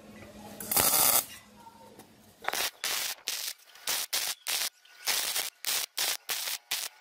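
Wire-feed welder arcing on steel square tubing in short crackling bursts: one brief burst about a second in, then from about two and a half seconds a run of short bursts, two or three a second, as the joint is stitch-welded.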